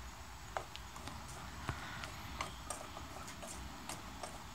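Spatula stirring food in a kadai: faint, irregular clicks and taps as it knocks and scrapes against the pan.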